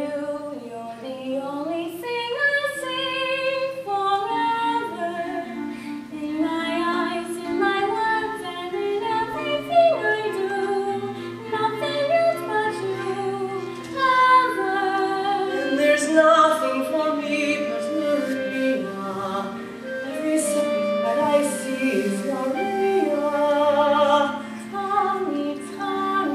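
A young woman singing a slow melody with vibrato in a musical-theatre style, over a held instrumental accompaniment.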